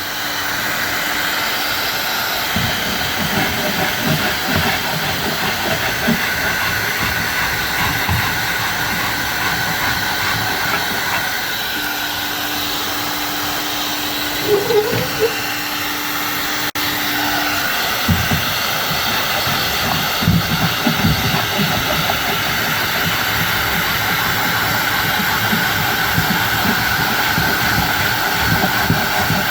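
A power tool running steadily with a loud hissing rush, over irregular low knocks from the work.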